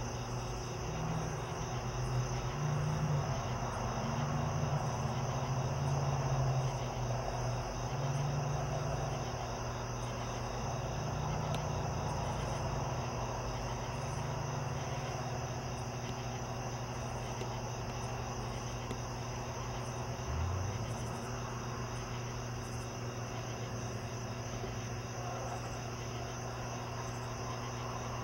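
Night insect chorus of crickets: a steady, unbroken high trill, over a low rumble that swells and fades during the first half.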